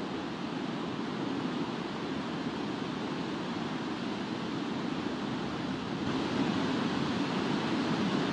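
Water pouring from a dam's open spillway gates: a steady, heavy rush of water, a little louder about six seconds in.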